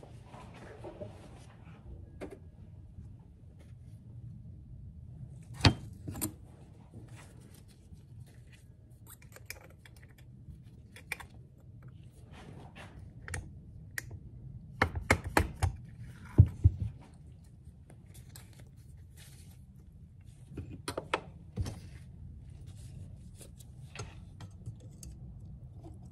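Scattered small metal clicks and taps from fitting washers and a snap ring onto a VW beam-front kingpin spindle, with a quick run of sharp mallet taps on the spindle a little past the middle and a few more clicks later.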